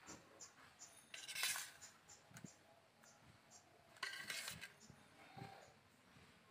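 Metal spatula scraping and clinking against steel plates while fried beans and potatoes are served onto rice. There are two short scraping strokes, about a second in and about four seconds in.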